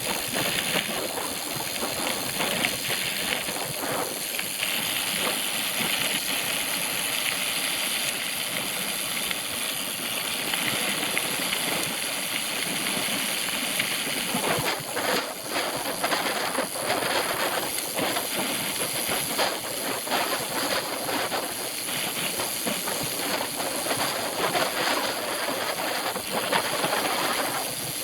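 Bicycle rolling over a rough trail: a steady rush of tyre noise with many small rattles and knocks.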